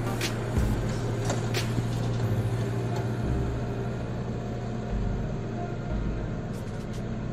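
JCB 3CX backhoe loader's diesel engine running steadily as the machine moves over loose dirt. A few sharp clicks or knocks come near the start and again near the end.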